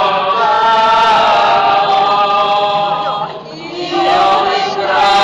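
A group of voices singing a slow Holy Week hymn in long held notes, with a short pause a little past three seconds in before the next phrase begins.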